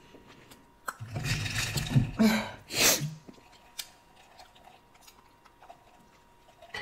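A few loud, breathy mouth and throat sounds from a person, then faint sips through a drinking straw from a jar.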